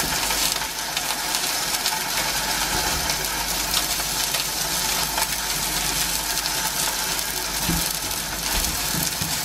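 Rump steak sizzling in oil in a thick-based frying pan as it sears on its first side: a steady crackling hiss, with a couple of soft knocks near the end.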